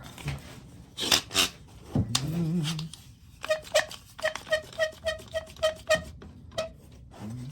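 Clamps being handled against the wood with rubbing and scraping, then a trigger bar clamp pumped tight: a quick even run of about a dozen short squeaky clicks, roughly three to four a second, clamping a glued table-leg repair.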